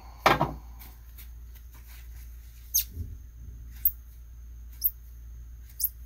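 Fiber-optic cleaver worked by hand: one loud clack shortly after the start as the cleaver is pressed down. It is followed by four short, sharp, high clicks about a second apart from the cleaver and strippers being handled, with a soft thump near the middle.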